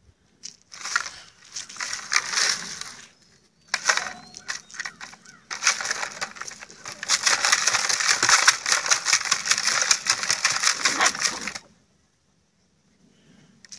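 Labradoodle puppies crunching ice cubes, a dense crackling crunch in three stretches; the longest starts about halfway through and stops a couple of seconds before the end.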